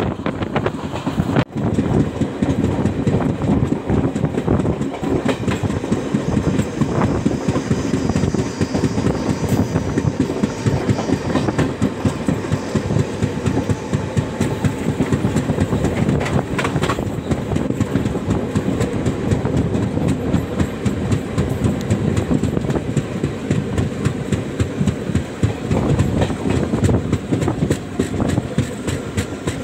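Indian Railways passenger coach running at speed, heard on board: a steady rumble of wheels on track with rapid, continuous clicking as the wheels pass over rail joints.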